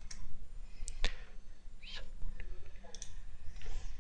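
Computer mouse clicking, several separate clicks a second or so apart, over a steady low hum.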